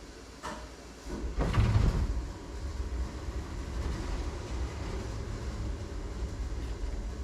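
Electric power window motor in a 1961 Cadillac Series 62 door starts about a second in and runs steadily, driving the glass along its channel with a low rumble.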